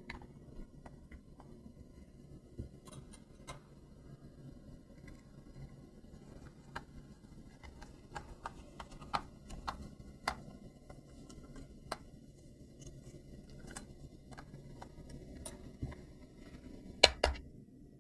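Scattered small clicks, taps and light scratches of hands handling a toy radio-control car or its packaging, over a faint low hum, with two sharper clicks near the end.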